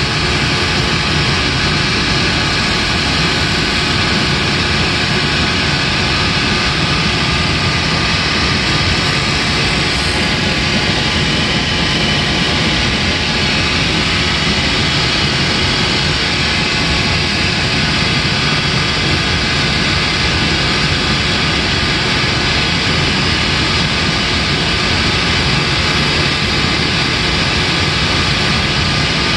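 A machine running steadily, a loud even whir that does not change.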